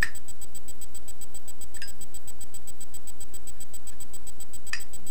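Zippo lighter's metal lid clicking three times as it is flicked open and snapped shut during a hand trick, over a steady background hum.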